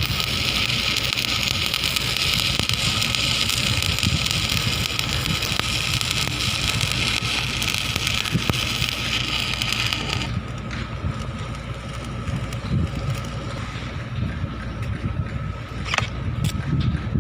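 Electric stick-welding arc crackling and hissing steadily, then cutting off suddenly about ten seconds in as the arc is broken. A low rumble continues underneath, with a few sharp ticks near the end.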